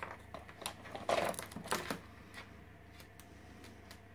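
Plastic toys clicking and clattering in a plastic bowl as an African grey parrot rummages through them with its beak. The knocks are busiest in the first two seconds, the loudest about a second in, then thin out to a few light ticks.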